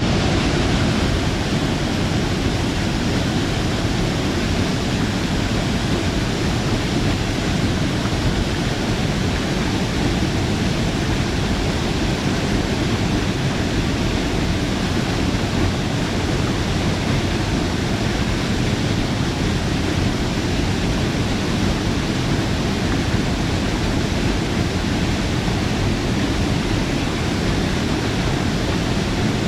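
Waterfall: water pouring down and splashing into its pool in a steady, unbroken rush, deepest and strongest in the low range.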